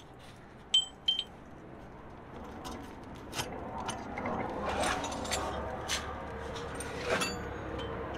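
Metal tools and a hydraulic bottle jack clinking and knocking under a trailer's suspension: two sharp ringing clinks about a second in, then scattered knocks and clatter as the jack is taken out from under the swing arm.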